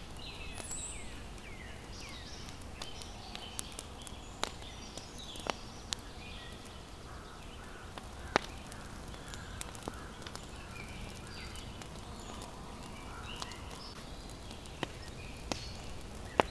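Woodland birds chirping and calling throughout, with short whistled notes that fall in pitch, over a low steady background rumble. Sharp single cracks or clicks come at irregular intervals, about a dozen in all.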